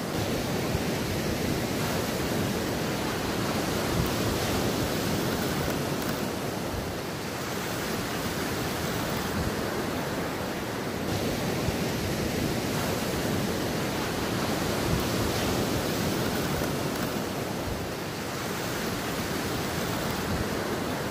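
Surf breaking and washing up a sand beach: a steady rush of waves that swells and eases slowly.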